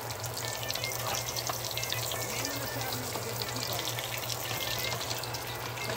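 Taquitos deep-frying in a pot of hot oil, sizzling with a dense, steady crackle. A low steady hum runs underneath.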